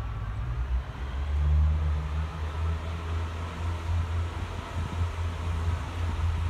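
Diesel multiple unit's underfloor diesel engine running with a low drone. About a second and a half in it steps up in pitch and loudness as the train moves off.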